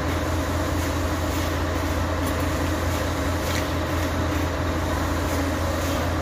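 Steady low mechanical hum, a constant drone that does not change.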